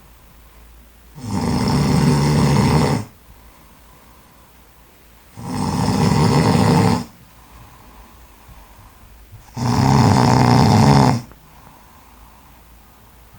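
A heavyset man of about 100 kg snoring loudly in his sleep: three long snores, each about a second and a half to two seconds, coming about every four seconds, with quiet between them.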